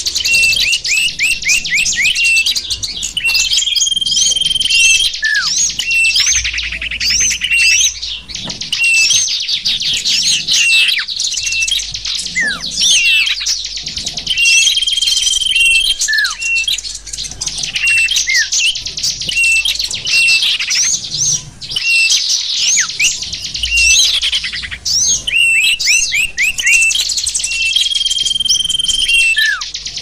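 A dense, continuous chorus of many small songbirds chirping and twittering rapidly, mixed as a bird-luring (pikat) recording. A short held whistle recurs a few times, and now and then a single whistle drops in pitch.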